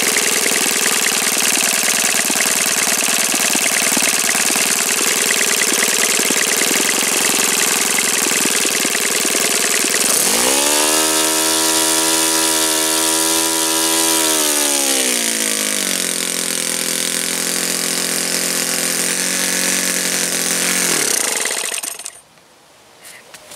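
OS FS-91 Surpass four-stroke glow engine driving a 14x6 Master Airscrew propeller: it runs steadily at high revs, is throttled back about 10 seconds in with the pitch falling to a steady lower speed, drops again to idle about 15 seconds in, and stops abruptly about 22 seconds in when the fuel line is pinched off.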